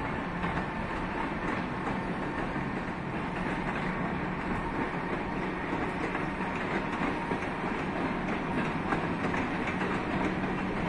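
Passenger coaches of a departing train rolling along the track, a steady rumble with occasional faint wheel clicks over rail joints.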